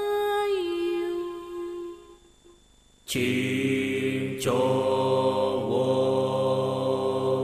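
Ritual chanting for the cingcowong rain dance. A single voice sings a gliding, mantra-like line that fades out about two seconds in. After a short lull, a louder, fuller chant starts abruptly about three seconds in and holds steady.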